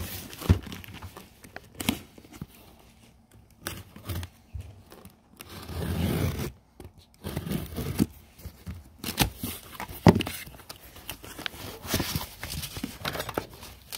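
Packing tape being ripped off a small cardboard box and the flaps pulled open, then packed items slid out: an irregular run of sharp rips, scrapes and knocks of cardboard being handled.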